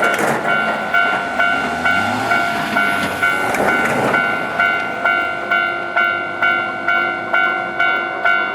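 Japanese railway level-crossing warning bell ringing, about two dings a second, throughout. During the first four seconds a train passes over the crossing, with rail noise and clicks under the bell.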